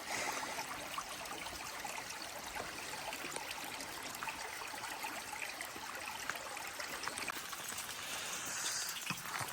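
Stream water running steadily, with a few faint ticks scattered through it.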